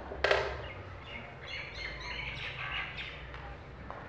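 A single sharp click about a quarter second in, then a small bird chirping repeatedly in the background for about two seconds.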